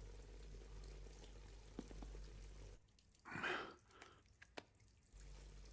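A single breathy sigh about three seconds in, over a faint steady hum and a few small clicks.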